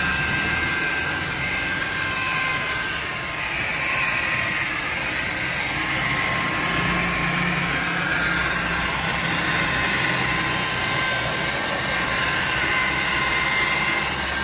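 Electric rotary polisher running steadily, its pad buffing a scooter's plastic body panels: a continuous motor whine whose pitch wavers slightly as the pad works the panel.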